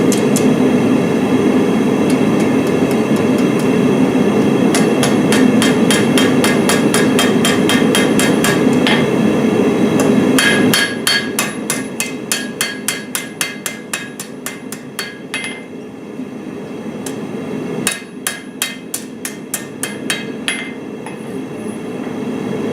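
Blacksmith's hammer striking hot steel on an anvil, forging an old file into a fire steel, in rapid runs of blows that ring after each strike. A steady low rushing noise lies under the blows and cuts off about eleven seconds in; after that the blows come in shorter runs with brief pauses.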